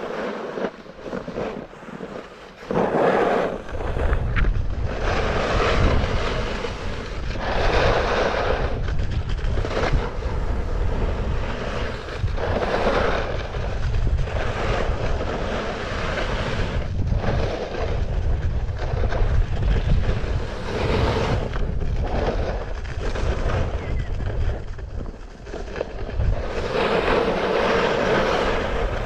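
A Hovland Buckshot snowskate sliding over packed snow, its deck scraping in swells every two to three seconds as it carves turns downhill. Wind rumbles on the microphone from about three seconds in.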